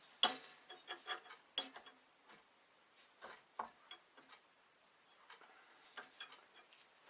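Scattered light clicks and taps, irregular and sparse, as a woodturning gouge and its sharpening jig are handled and adjusted at a bench grinder that is not running.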